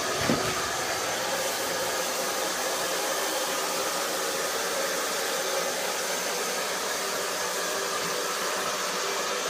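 Drybar Buttercup hair dryer running steadily, an even rush of blown air. There is one brief knock just after the start.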